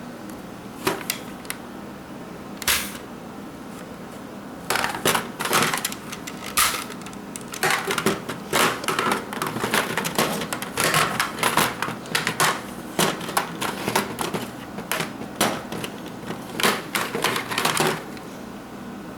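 Irregular sharp plastic clicks and clacks from toy foam-dart blasters being handled: a few single clicks, then dense clusters from about five seconds in.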